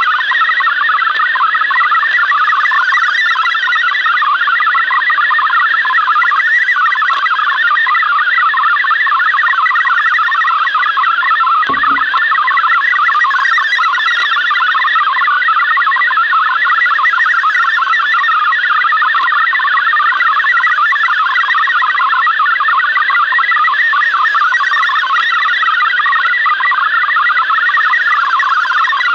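MFSK64 digital data signal from a Yaesu FRG-7700 shortwave receiver: a dense, fast warble of rapidly stepping tones, steady and unbroken. One soft knock about twelve seconds in.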